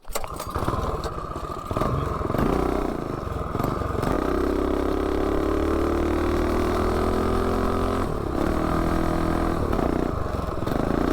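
Minibike's Predator 212 single-cylinder engine with a header pipe running under throttle: a few seconds of uneven revving, then a steady pitch that slowly rises for about four seconds as the bike gathers speed, breaking off and easing down near the end.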